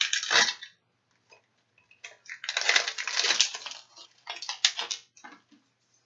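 Rustling and crinkling of a plastic wrapper being opened by hand, in several bursts with a few sharp clicks, as a heparin flush syringe is unwrapped.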